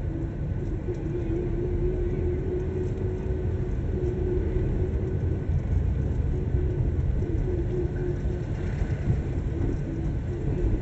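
Car engine and road rumble heard from inside the cabin of a car driving slowly: a steady low rumble with a hum that fades in and out.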